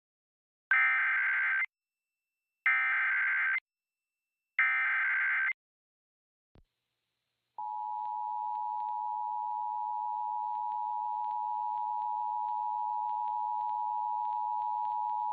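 Emergency Alert System tones. First come three short bursts of SAME header data, about two seconds apart. Then, after a faint click, the steady two-tone attention signal begins about seven and a half seconds in and holds. It is the alert signal ahead of a National Weather Service tornado warning.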